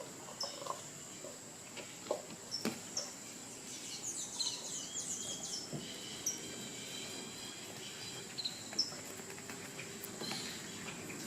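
Small birds chirping in the background, with short high chirps every couple of seconds and a brief flurry of song about four seconds in. A steady high-pitched whine runs underneath, and there are a few faint knocks from handling early on.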